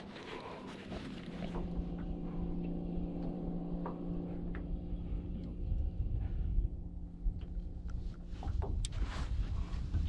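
A boat's outboard engine drones steadily at a constant pitch, coming in about a second and a half in and fading out near the end. Light clicks and knocks of tackle being handled in an aluminium boat sound over a low rumble.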